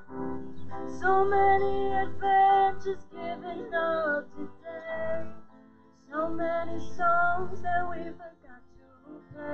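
Music: a woman singing a song with accompaniment, holding long notes, with a brief pause about halfway before the next phrase.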